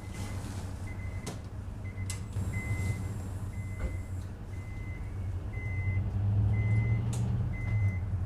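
A short, high electronic beep repeating about every three-quarters of a second over a steady low rumble that grows louder in the second half.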